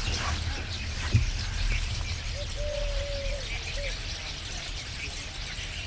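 Small birds chirping in a crop field over a steady low rumble, with a short knock about a second in and a few drawn-out call notes in the middle.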